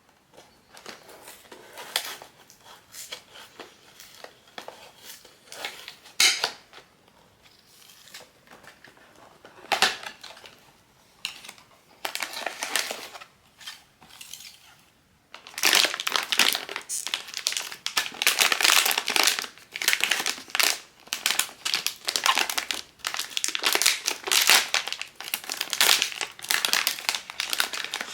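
Crinkly blind-box packaging being handled and unwrapped: scattered crackles at first, then steady, dense crinkling from about halfway through.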